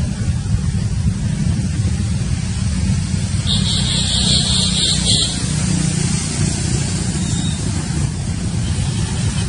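Steady low wind rumble on the microphone, outdoors among the monkeys. About three and a half seconds in, a shrill high-pitched sound is held for under two seconds.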